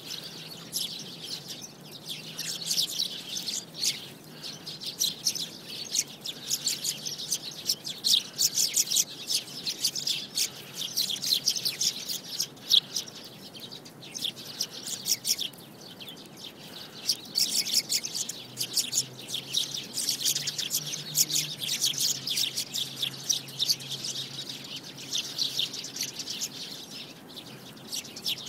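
Sparrows chirping: a dense, unbroken chatter of short, high chirps, several overlapping at once, with brief lulls.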